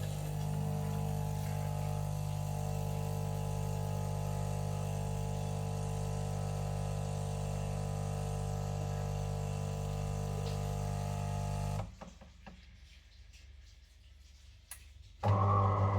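De'Longhi Magnifica Evo coffee machine running with a steady buzzing hum that cuts off suddenly about twelve seconds in. A few clicks follow, then the machine starts running again, a little louder, near the end.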